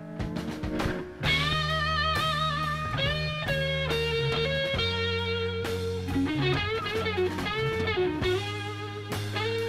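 Rock ballad music: an electric guitar playing an instrumental lead with wavering, bent notes over a steady low accompaniment.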